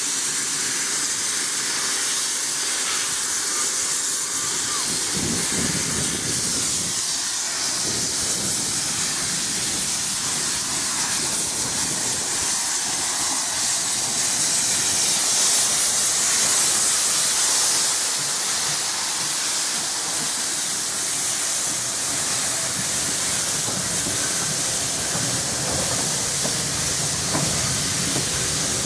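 SECR C class steam locomotive No. 592 pulling away, steam hissing from its open cylinder drain cocks. The hiss is loudest about halfway through as the engine passes close by, and near the end the train's carriages roll past.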